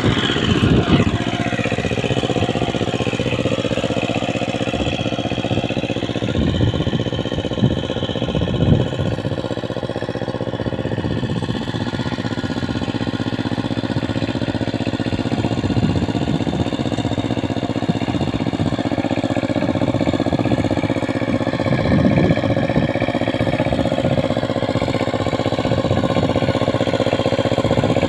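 Single-cylinder diesel engine of a two-wheel walking tractor running steadily under load as it pulls its cage wheels through a flooded rice paddy.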